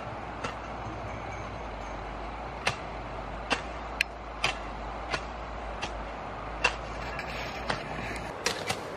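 Sharp knocks or clicks at irregular intervals, roughly one every half second to a second, over a steady low rumble that stops shortly before the end.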